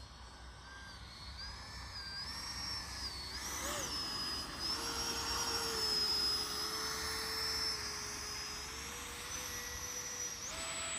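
80 mm electric ducted fan of an FMS Rafale model jet whining in flight, its pitch wavering with the throttle. It grows louder toward the middle, eases off, then steps up in pitch near the end.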